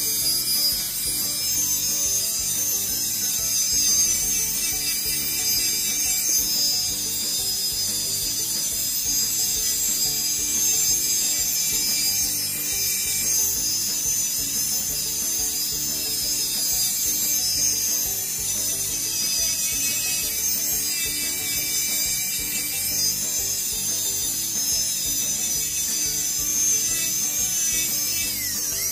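Electric nail drill with a titanium bit gently sanding gel polish off a natural fingernail: a steady high-pitched whine.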